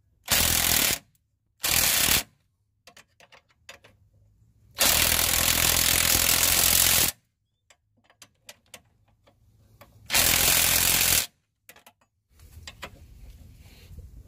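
Cordless impact tool hammering a socket onto the bolts of a front shock absorber's lower mount. It runs in four bursts, from under a second up to about two seconds long, with small metallic clicks of tool handling in between.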